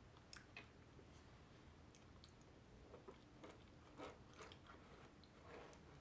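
Faint close-miked eating sounds: chewing with a few soft mouth clicks, then, from about halfway, a fork clicking and scraping in a black plastic KFC Famous Bowl of mashed potatoes and chicken.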